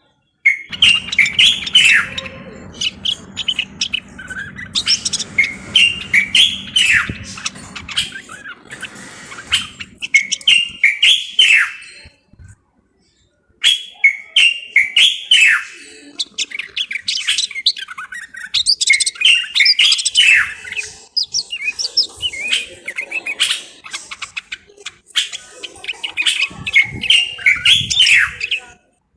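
Common bulbul singing: loud, short whistled phrases repeated over and over, with short pauses and a brief break about twelve seconds in. A faint low hum sits under the first third.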